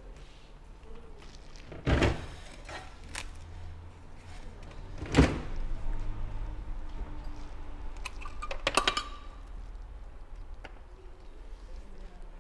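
Two dull thumps a few seconds apart, then a quick run of clicks about two-thirds of the way through, over a faint low hum.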